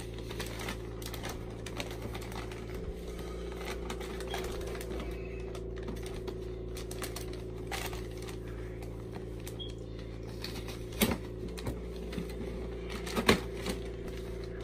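Gift bag and tissue paper rustling and crackling as hands dig through them, with a rapid run of small crinkly clicks and two louder snaps near the end.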